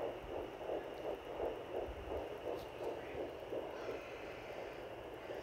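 Home fetal Doppler picking up a 10-week fetus's heartbeat: fast, even whooshing pulses, about three a second, over a steady hiss. The pulses fade out about four seconds in, leaving only the hiss as the heartbeat is lost.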